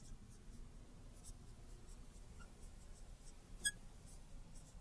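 Faint scratching of a marker writing on a lightboard, a string of light strokes with one sharper tap about three and a half seconds in.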